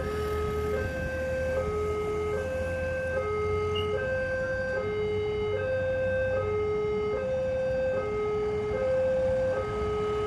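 Railway level-crossing warning alarm sounding a steady high-low two-tone pattern, the two tones swapping a little under once a second, over a low engine rumble that fades out about two-thirds of the way through.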